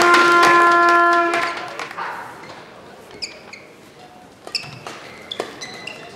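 Crowd clapping with a long steady horn-like note held over it, dying away after about a second and a half. The hall then goes quieter and a badminton rally starts: brief squeaks of court shoes on the floor and sharp racket hits on the shuttlecock.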